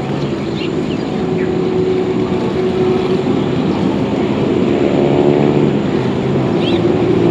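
A boat's motor running steadily, growing gradually louder.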